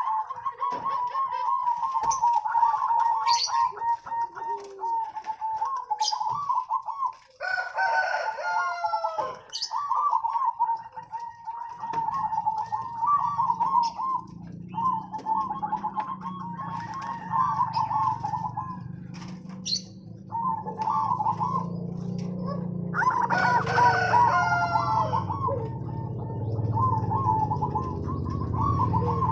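Zebra dove (perkutut) song: phrase after phrase of quick, rhythmic cooing notes. Twice a louder, harsher bird call breaks in, and from about twelve seconds in a steady low hum runs underneath.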